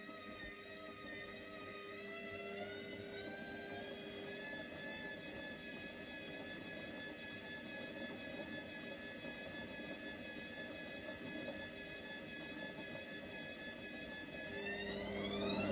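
Indesit washing machine motor whining as the drum spins. The pitch rises a little about two seconds in, holds steady, then climbs steeply near the end as the drum speeds up for the spin.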